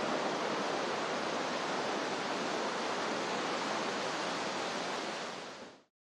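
Steady rushing noise with no pitch, an even hiss, left over from the background bed of the nasheed's mix once the singing has stopped. It fades out about five and a half seconds in and drops to silence.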